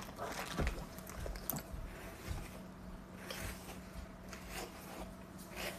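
Soft rustling and handling noises as things are pulled out of a bag, then a hairbrush drawn through long hair in a few strokes, over a faint steady hum.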